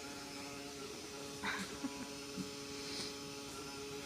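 Small vacuum cleaner's electric motor running with a steady hum.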